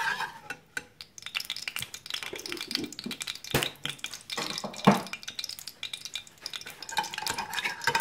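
Metal spoon stirring and scraping lumps of ghee around a metal pan, a string of clinks and scrapes with two louder knocks about three and a half and five seconds in. The ghee sizzles lightly as it melts.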